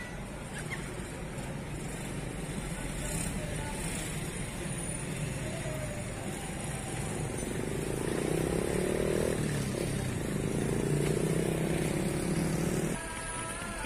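Engine of a loaded long-haul truck running as it drives past on the road, growing louder with a rising engine note toward the end, then cutting off abruptly about a second before the end.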